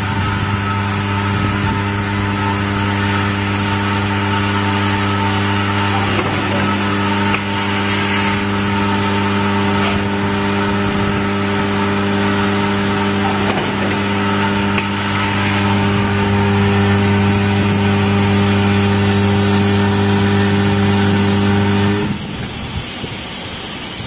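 Vibration plate (vibratory bowl) feeder of a power plug crimping machine buzzing with a steady low hum as it feeds loose terminals down its track, with a few faint clicks from the machine. The buzz cuts off about two seconds before the end.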